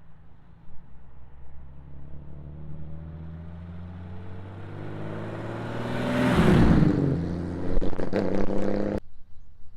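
Hot rod driving past, its exhaust note building as it approaches and dropping in pitch as it goes by, with a few sharp cracks from the exhaust just after it passes. The sound cuts off suddenly near the end.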